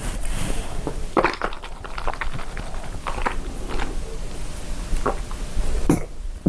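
Ice being bitten and chewed close to the microphone: a string of irregular, sharp crunches.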